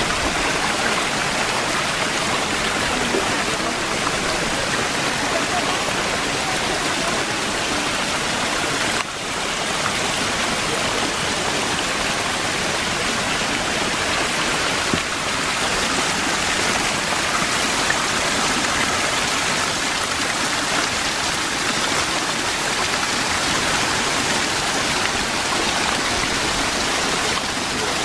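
Many fountain spouts jetting water into a long stone channel and cascading down a mossy wall: a steady rush and splash of falling water.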